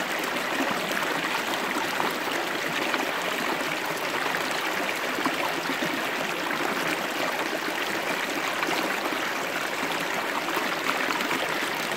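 Shallow stream rushing and splashing over rocks, a steady, close rush of water with fine bubbling flickers.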